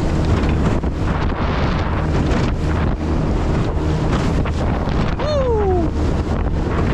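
Wind buffeting the microphone over the steady running of a small jon boat's outboard motor and the rush of water. About five seconds in there is a short falling call.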